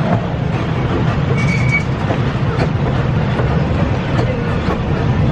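Amusement-park ride train running along its track, heard from aboard: a steady low rumble with scattered clicks from the wheels on the rails, and a brief high squeal about a second and a half in.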